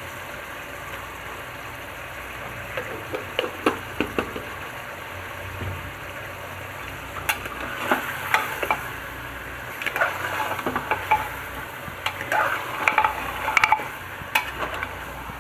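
Meat pieces and ginger-garlic paste frying in oil in a pressure cooker, a steady sizzle, while a steel spoon stirs them, scraping and clinking against the pot. The clinks come more often in the second half. The sound is the browning (bhuna) stage of the cooking.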